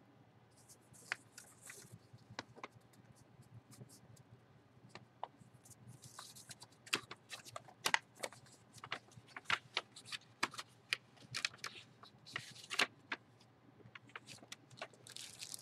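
Plastic wrapping crinkling and a manila envelope rustling as they are handled: many sharp crackles and short rustles, sparse at first and busier about six seconds in.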